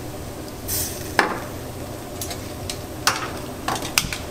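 Starch slurry being stirred in a bowl, the utensil knocking against the bowl in a few sharp clicks, over a steady low background noise.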